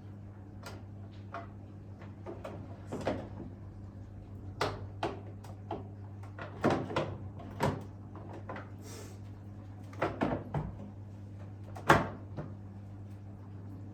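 Irregular knocks, clicks and clatter of hard parts being handled while a coffee machine is cleaned, the loudest knock about 12 seconds in, over a steady low hum.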